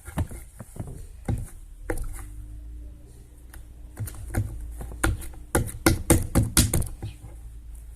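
Hands playing with homemade slime, making sticky clicks and pops, with a quick run of loud ones about two-thirds of the way through. A low steady hum sits underneath from about two seconds in.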